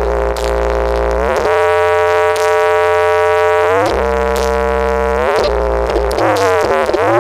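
Loud electronic music played through a large horeg sound system with eight double subwoofers. Heavy bass notes sit under sustained synth tones that slide up and down in pitch every second or two.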